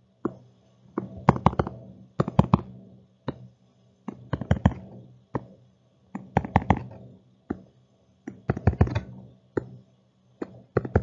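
A pen tapping and scratching on a hard drawing surface as small boxes are drawn, in clusters of sharp clicks about every two seconds, one cluster for each shape.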